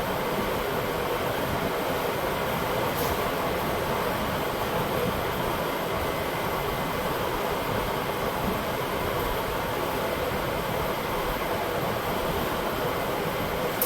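Shop fan blowing: a steady, even rushing noise with a faint hum in it, and no knocks or strikes.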